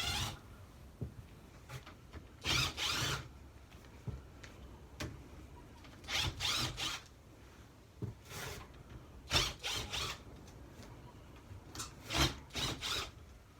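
Screws being backed out of a dog sled runner's aluminum base with a driver, in about six short bursts of grinding, ratcheting tool noise with quieter pauses between.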